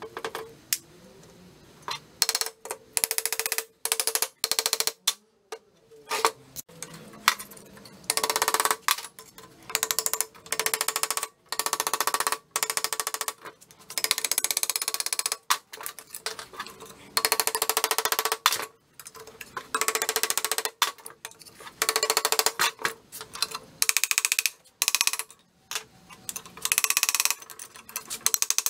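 Pneumatic air hammer rattling against a rusted small engine's cast-iron block and crank in a string of short bursts, each under a second to about a second and a half, with brief pauses between.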